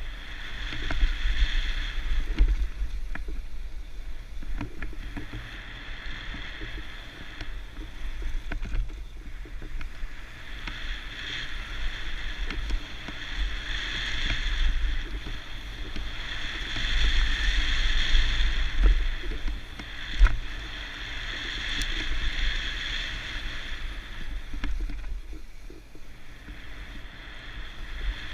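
Mountain bike riding a bike-park trail: wind buffets the mounted camera's microphone and the tyres roll over dirt, with a high rushing noise that swells and fades with speed. Scattered knocks come from bumps, the sharpest about two-thirds of the way through.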